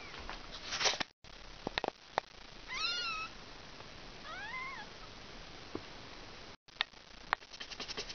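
Two short cat meows, the first wavering and the second rising then falling, with scattered light clicks and a run of quick ticks near the end.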